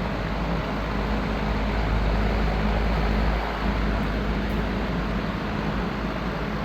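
Vintage Lakewood Country Aire three-speed box fan with a Westinghouse motor running on high: a steady rush of air over a low motor hum and rumble.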